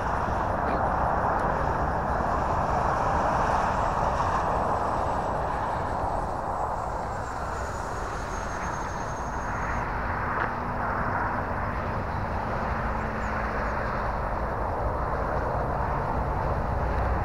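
Horizon Hobby Viper 70 mm electric ducted-fan RC jet in flight: a steady rushing whoosh of the fan, swelling and fading as the jet passes. A faint high whine drops in pitch about nine seconds in.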